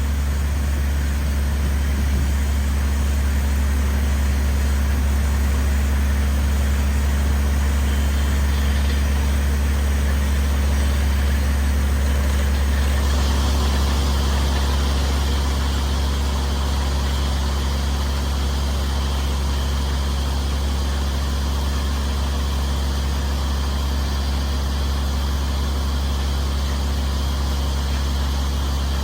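Engine of a well-drilling rig running steadily at a constant speed, a deep, even hum, with a change in the higher hiss about thirteen seconds in.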